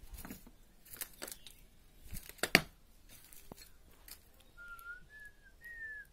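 Crunching and knocking of footsteps or handling on a debris-strewn floor in a small bare room, with one loud knock about two and a half seconds in. Near the end come three short whistle-like notes, each a little higher than the last.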